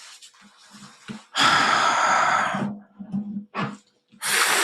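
A man exhaling heavily twice, each a long, hissing sigh of about a second, with faint mutters between: an exasperated sigh after his team has conceded a goal.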